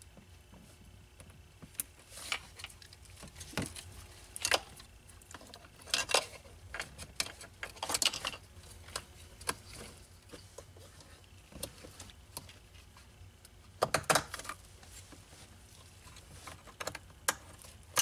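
Irregular small clicks, taps and rustles of plastic electrical connectors being plugged together and a park detect switch's wiring harness being pressed into its plastic clips by gloved hands.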